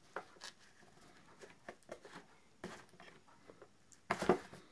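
Scattered small clicks and knocks of hands handling a plastic IP camera and its power plug at the back port, with a louder bump about four seconds in.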